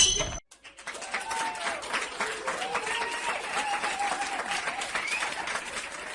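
Dense, steady crackle of many claps, like an audience applauding, with faint voices over it. It starts after a short silence about half a second in.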